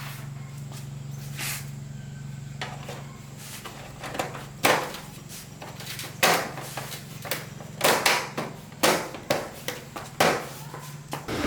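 A run of sharp knocks and clanks, irregular and coming faster in the second half, like metal tools and parts being handled during motorbike engine work. They sound over a steady low hum that stops near the end, where a louder even rushing noise begins.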